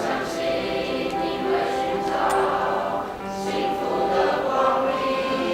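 Student choir singing, holding long steady notes.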